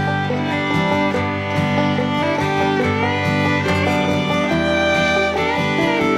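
Background instrumental music with fiddle and guitar in a bluegrass or country style, playing steadily.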